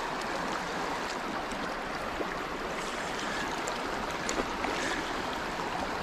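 Steady rush of flowing river water, with a few faint scattered ticks over it.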